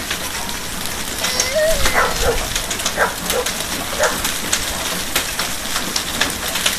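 Heavy hail falling with rain: a steady hiss with frequent sharp clicks of hailstones striking the ground and objects. A few short, voice-like cries come about two to four seconds in.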